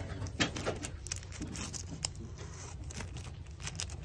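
Bagged comic books being flipped through by hand in a cardboard box: a run of quick, irregular plastic flicks and taps as each sleeved issue is pushed forward.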